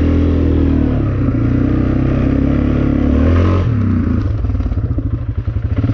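Honda Recon 250 ATV's single-cylinder engine running steadily under way. About three and a half seconds in, the engine note drops and slows to a low putter with each firing stroke heard separately, as the four-wheeler eases off, then it picks up steady again at the end.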